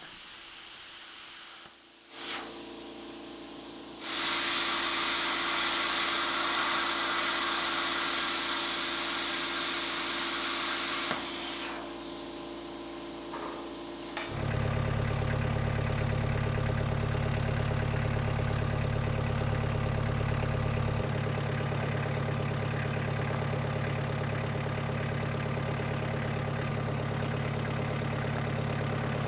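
A long, steady hiss of an aerosol spray paint can for about seven seconds. About fourteen seconds in, a planer's 5-horsepower motor switches on and runs with a steady hum.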